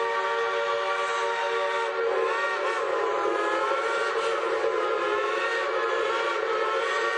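Train whistle sounding a long, unbroken note made of several tones at once. Its pitch wavers for a couple of seconds in the middle, then steadies again.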